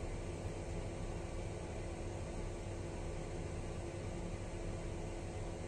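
Steady mechanical hum and hiss of a small fan or motor running, with a constant low tone and no changes.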